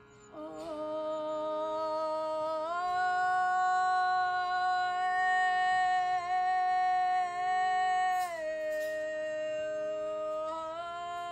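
A woman's voice singing long, held wordless tones over a steady drone note. The sung pitch steps up a little over two seconds in, drops back about eight seconds in, and rises again near the end.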